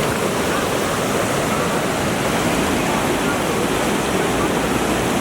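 Class III/IV whitewater rapids rushing, a loud, steady wash of water noise.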